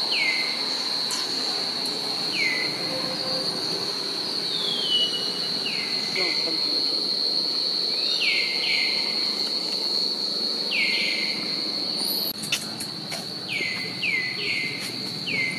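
Steady high-pitched insect drone, over which an animal gives short calls that each fall in pitch, singly or a few in quick succession. A few sharp clicks sound about three quarters of the way through.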